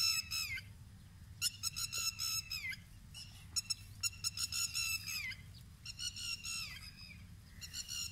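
Partridge (titar) chick calling in repeated bouts of rapid, high peeps, about five bouts each a second or so long, the notes dropping in pitch at the end of each bout.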